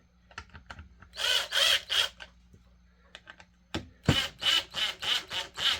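A hand tool working a screw on a chainsaw in short rasping strokes: three strokes, a pause with a couple of sharp knocks, then a steady run of about five strokes, roughly two a second.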